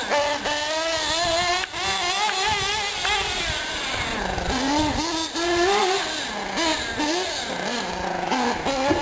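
Team Associated SC8 nitro short-course R/C truck's small glow engine running hard. Its high buzz rises and falls over and over as the throttle is worked around the track.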